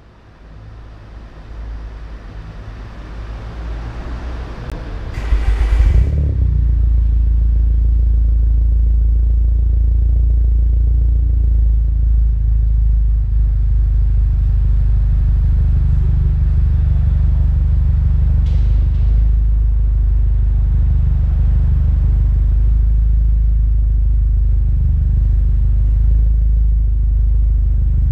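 Exhaust of an Alfa Romeo 159 1750 TBi turbocharged four-cylinder, heard at the tailpipe. The exhaust has its mid silencer removed, a downpipe fitted and an aftermarket Vibrant resonator added. The sound swells over the first few seconds, gives a short loud flare about five seconds in, then settles into a steady, deep idle rumble.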